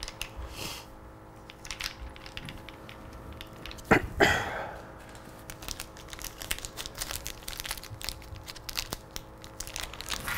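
Hands handling small parts at a motorcycle engine cover: scattered light clicks and rustling, with one sharper clack about four seconds in followed by a second of rustling.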